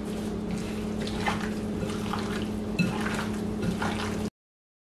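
Bare hands squelching and turning raw chicken wings in a wet spice marinade in a glass bowl, with a few soft knocks against the glass, over a steady low hum. The sound cuts off abruptly a little after four seconds.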